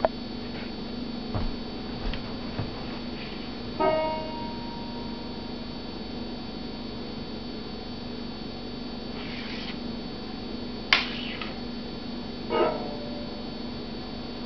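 Handling noise from a leather banjo strap with metal rings being handled beside a banjo: scattered clicks, a sharp click, and two brief ringing notes, about four seconds in and again near the end. A steady electrical hum runs underneath.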